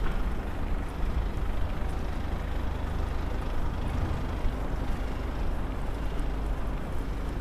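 Steady outdoor noise with a heavy low rumble and no distinct events.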